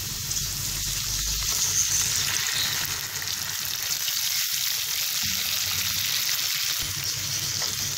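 Sliced onions frying in hot oil in a nonstick pan, sizzling steadily as a watery paste of ground tomato, green chilli, garlic and ginger is poured in.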